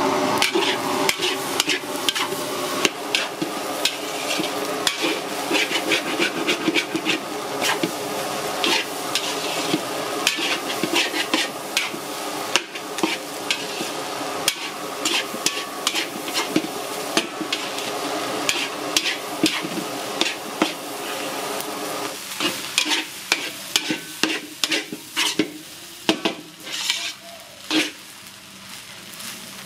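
Metal spatula scraping and turning fried rice in a steel wok, sharp scrapes and clanks coming thick and fast over a steady sizzle of frying. The strokes thin out and the sizzle drops over the last several seconds.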